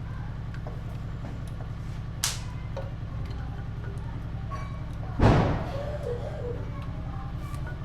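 Tool and part handling noises from work on a motorcycle engine: a sharp click about two seconds in and a loud knock a little after five seconds, over a steady low hum.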